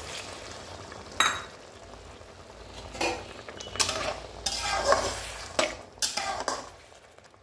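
Water poured into a hot steel kadai of curry hisses and fades within the first second. Then a metal spatula stirs the curry in a series of short scraping strokes against the pan, with a sharp clink about a second in.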